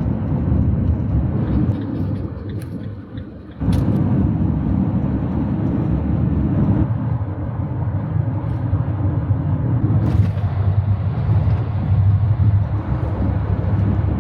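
Steady low rumble of a camper van driving down the road, engine and road noise together. It fades about two seconds in and comes back suddenly near four seconds.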